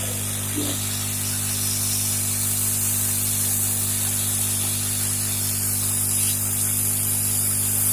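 Hot-air rework blower giving a steady hiss with an electrical hum underneath, heating a small audio IC on a set-top box board to desolder it.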